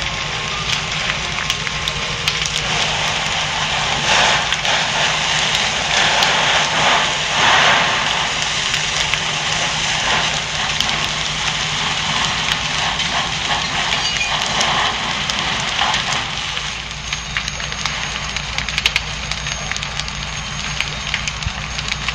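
Large barn and hay fire burning with a dense crackling hiss and scattered sharp cracks, loudest in the first half while fire hoses are played on the steaming debris. A steady low hum runs underneath.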